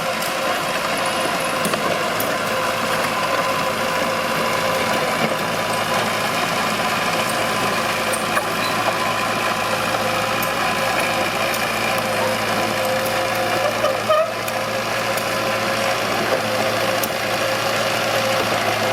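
Mitsubishi BD2H bulldozer's diesel engine running steadily, with a short clunk about fourteen seconds in.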